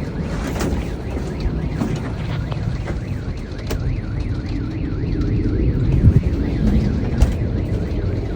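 Car alarm sounding in a fast, repeating rising-and-falling wail over a steady low rumble.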